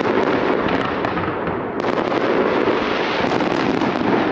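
Fireworks salute: many shells bursting, a dense continuous rumble of bangs and crackles, with sharper spells of crackling about two seconds in and again past three seconds.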